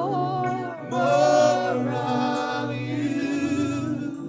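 Gospel worship singing: voices holding long, wavering sung notes over steady low sustained accompaniment.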